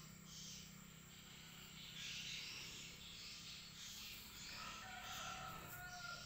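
Faint background hiss and low hum, with a faint drawn-out animal call starting about four and a half seconds in.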